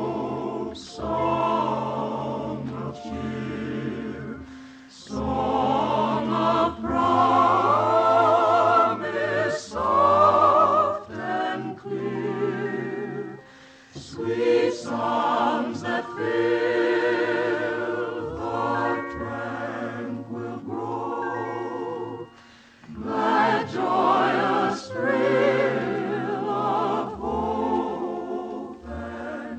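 Operetta singing with orchestral accompaniment: voices singing with a wide vibrato in sustained phrases, with short breaks between phrases.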